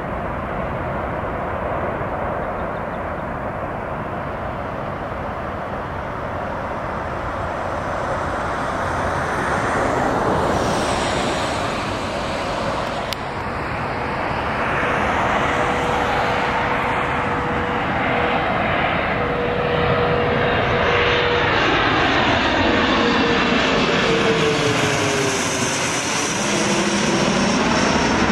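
Jet engine noise from landing aircraft: a steady rush in the first seconds, then an Embraer ERJ-145-family regional jet on final approach coming in and passing overhead. It grows louder, and its engine whine holds steady, then drops in pitch in the last few seconds as the jet goes by.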